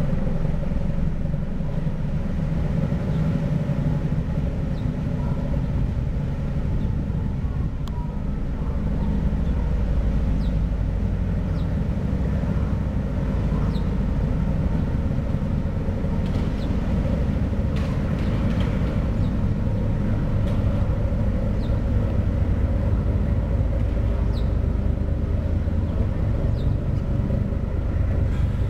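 Car ferry Ishitegawa's diesel engines running steadily under way as it pulls away from the pier, a continuous low rumble with propeller wash.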